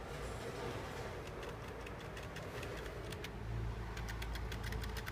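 Computer keyboard keys being typed, a run of short clicks in small groups over a steady low background hum.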